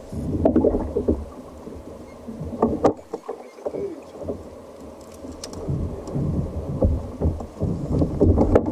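Water slapping and sloshing against a kayak's hull in irregular bursts, over a low rumble, with a few light knocks.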